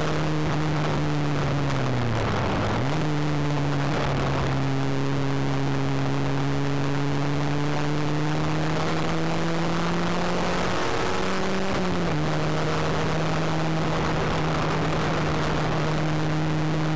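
Ford Fiesta Mk3 XR2i's 1.8-litre 16-valve four-cylinder engine pulling hard, heard from inside the cabin over road and wind noise. The revs dip and recover about two seconds in, then climb slowly and drop sharply at a gear change about twelve seconds in before holding steady.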